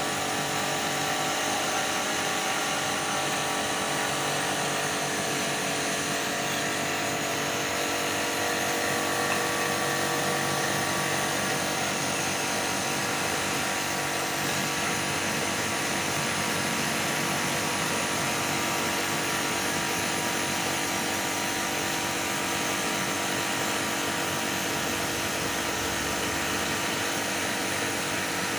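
Electric jet pump (small pressure washer) for AC servicing running steadily: a constant motor whine with a strong hiss.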